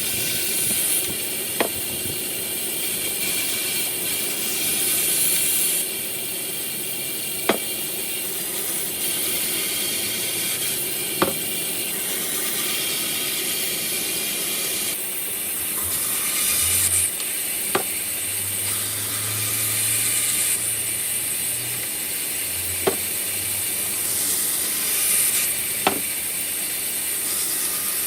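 Woodworking machine running with a steady high hiss, and a sharp knock every few seconds, six times in all.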